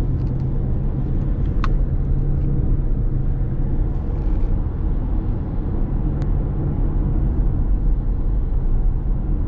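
Car cabin noise on the move: a steady low rumble of road and engine, with two brief sharp clicks.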